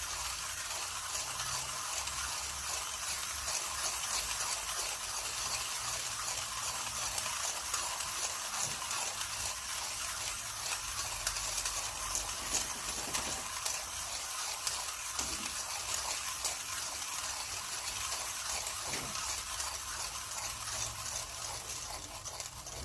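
Millwright hand coffee grinder's burrs crushing espresso beans as the handle is cranked: a steady, dense crunchy crackle that dies away near the end as the last beans go through.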